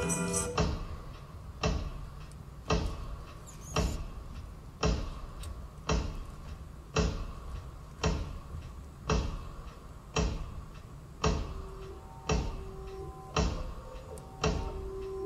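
Sparse recorded music for a stage dance piece: a single sharp, clock-like tick or knock about once a second, in a steady pulse. A low held tone comes in near the end.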